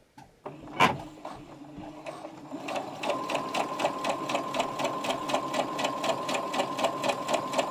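Brother sewing machine stitching through two thicknesses of cotton fabric: a sharp click about a second in, then the machine starts and settles into an even, rapid stitch rhythm of about five strokes a second. With its newly replaced bobbin case it runs smoothly, without the thump of the old one.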